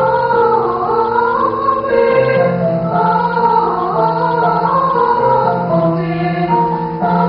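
Mixed choir singing in several parts: sustained chords that move from note to note every second or so, the upper voices wavering with vibrato over a steady bass line.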